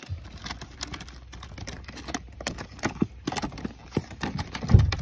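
Stiff plastic craft-die and embossing-folder packets clicking and clacking against each other as a hand flips through them in a plastic storage box, irregular and several times a second, with one louder knock near the end.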